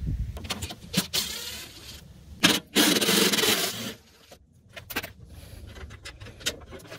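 Cordless drill-driver spinning out a bumper-end fastener: a short run about a second in, then a longer run of about a second and a half. Light clicks of handling follow.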